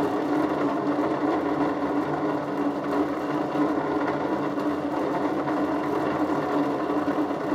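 Gem faceting machine running with a steady motor hum, its water-fed spinning lap grinding a piece of glass held against it.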